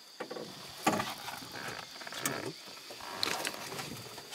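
A steady high drone of insects, with a few sharp clicks, knocks and rustles close to the microphone, the loudest about a second in.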